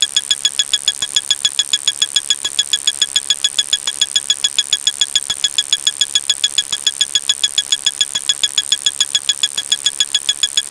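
A short, high-pitched tick-like sound effect repeated rapidly and evenly, about seven times a second, over a steady high hiss.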